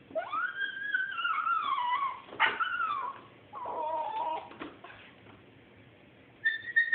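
A dog whining: three long whines in the first five seconds, each sliding down in pitch, then a higher, steadier whine starting near the end.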